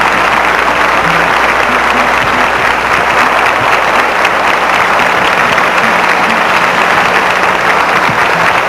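Large studio audience applauding, steady clapping from many hands.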